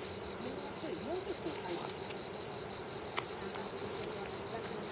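An insect chirping in a steady, even rhythm of short high pulses, about five a second, with faint distant voices underneath.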